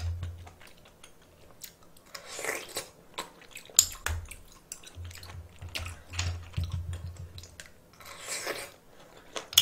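Close-miked eating of seasoned cockles: a scatter of small irregular clicks and taps with chewing, and one sharper click about four seconds in.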